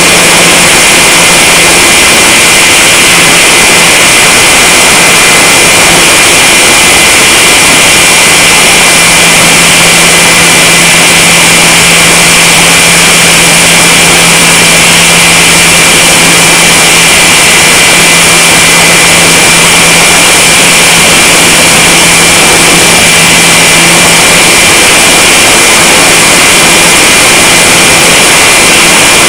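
Electric RC glider's motor and propeller running steadily in flight, heard through a camera mounted on the plane: a loud, unbroken rush with a steady high whine over it.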